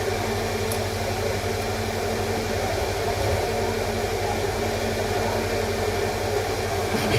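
Steady mechanical hum with a constant low drone and hiss, unchanging throughout.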